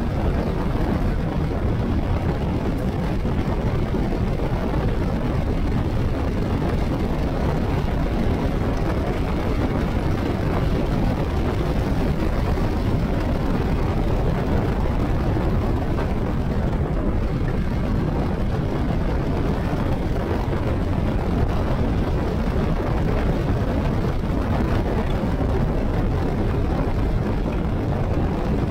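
Steady, deep rush of wind and road noise from a motorcycle cruising at highway speed, about 85 km/h, with the engine blended into it.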